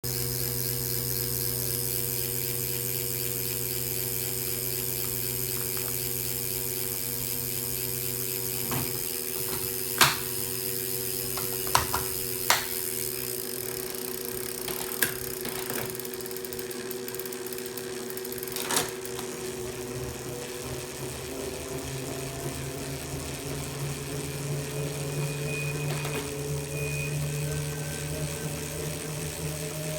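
Tacx Neo direct-drive smart bike trainer running under pedalling: a steady electric hum made of several tones, rising slightly in pitch in the second half. A handful of sharp clicks sound around the middle.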